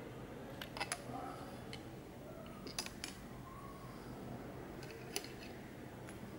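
Small sharp clicks of metal-framed Ray-Ban round sunglasses being handled, the hinges and temple arms ticking as they move. There are two quick clicks about a second in, two more near three seconds and one about five seconds in, over a steady low hum.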